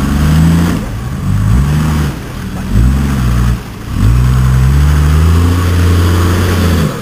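Toyota Land Cruiser 4x4 engine revving in repeated blips, its pitch climbing with each one about every second and a half, then held high for about three seconds before it drops.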